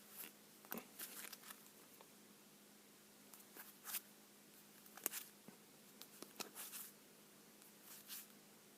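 Faint rustles and light clicks of Yu-Gi-Oh trading cards being handled and slid over one another, in scattered brief touches with the sharpest about five seconds in, over a low steady hum.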